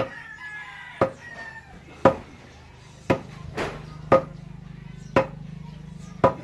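Manual well drilling: the well pipe is pounded down with a sharp, ringing strike about once a second, seven strikes in all. A low steady hum joins about three seconds in.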